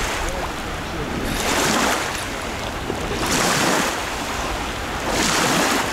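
Wind and water noise rising and falling in swells about every two seconds, with wind buffeting the microphone.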